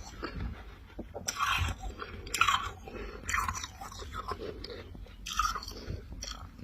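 A person biting and chewing mouthfuls of refrozen dry freezer frost: a series of irregular crisp crunches, several a few seconds apart.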